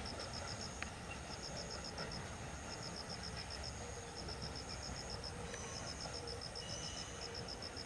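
Night insects chirping: a high-pitched chirp in short runs of rapid pulses, repeating about once a second, with a fainter higher trill, over a steady low background rumble.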